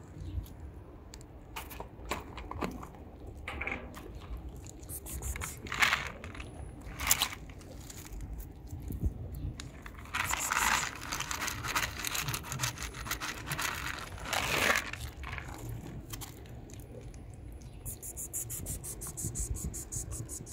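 Cat eating wet food from a foil tray: irregular chewing and smacking clicks, with a few louder scraping bursts, most around the middle. Near the end a fast, even, high-pitched ticking comes in.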